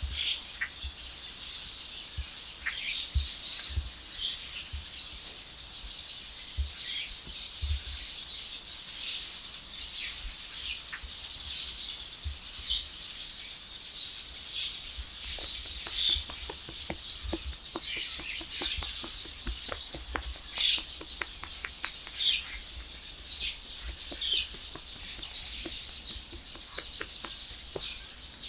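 Small birds chirping, with many short high chirps throughout and occasional low thumps.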